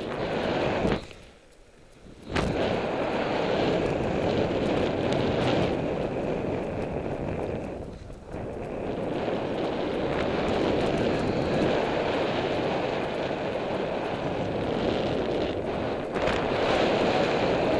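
Wind rushing over the microphone of a paraglider's camera in flight, a steady buffeting noise that drops away for about a second and a half shortly after the start and dips again briefly about eight seconds in.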